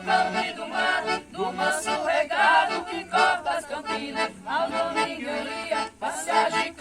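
Accordion playing an instrumental melody in the sertanejo caipira style, in short phrases of full, reedy chords.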